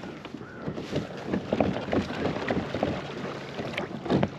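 Water splashing and sloshing around a fishing kayak, with irregular light knocks against the hull, the loudest near the end.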